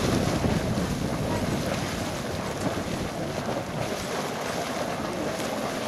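Small geyser vent in a hot-spring basin boiling and splashing, a steady rush of churning water and steam, with wind buffeting the microphone.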